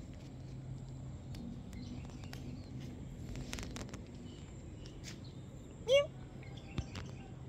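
A calico cat gives one short, rising meow about six seconds in, the loudest sound, over scattered faint bird chirps and a low steady hum.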